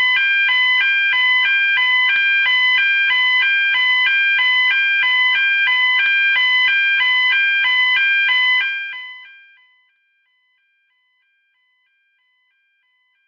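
Simulated fire alarm sounder, loud and electronic, switching back and forth between two high tones in a steady even rhythm. It fades out about nine seconds in, and near silence follows.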